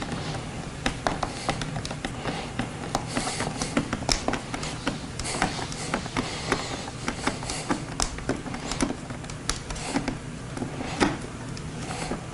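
Irregular clicks, taps and light knocks of hard plastic parts being handled, with a low steady hum underneath.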